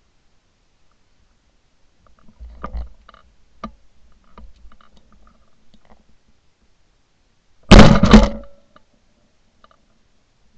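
A single shotgun shot about eight seconds in, a very loud blast picked up by a camera mounted on the gun's barrel. A few soft knocks and rustles of the gun being handled and swung come before it.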